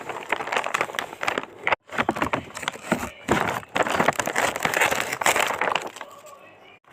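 Packaging from a Labubu blind bag crinkling and crackling in a fast run of small clicks as it is handled and opened, with two brief cuts and a softer stretch near the end.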